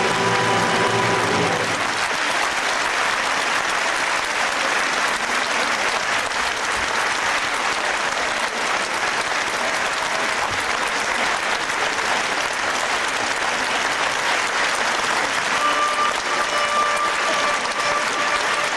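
Theatre audience applauding steadily, as the orchestra's last notes die away in the first couple of seconds. Near the end a held note from the orchestra comes in under the clapping.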